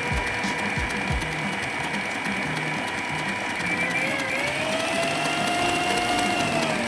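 Electric stand mixer running, its motor giving a steady whine while whipping a mousse mixture of cream and egg whites toward stiff-peak consistency. The whine rises in pitch about four seconds in and begins to wind down near the end as the mixer slows.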